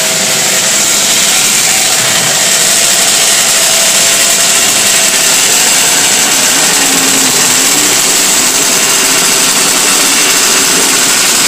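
Several classic 500cc racing motorcycle engines running together on the start grid, a loud, steady, raspy buzz with small wavers in pitch from the throttles, as the bikes warm up before the start.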